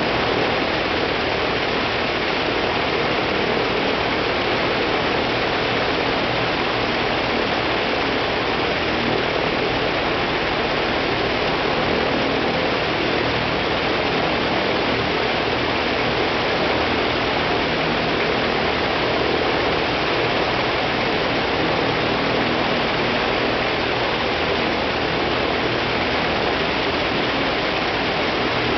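Ilyushin Il-14T's left ASh-82T fourteen-cylinder twin-row radial engine running steadily on the ground, its propeller turning, heard up close as a dense, even drone at a constant level.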